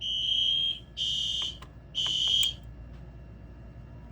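Fire alarm horn sounding in a pulsing pattern, a high buzzing tone about once a second, that stops abruptly about two and a half seconds in, leaving a low hum.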